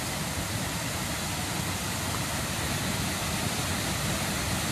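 A muddy mountain creek, swollen with rain runoff, rushing steadily over rocks under a wooden footbridge.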